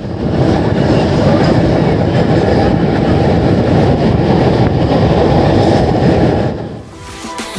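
Passenger train heard from on board while moving: a loud, steady rumble and rattle of the wheels on the track. It fades out near the end.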